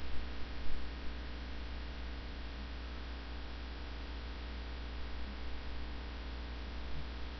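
Steady low electrical hum with a faint hiss, of the mains-hum kind, and a few soft knocks in the first second.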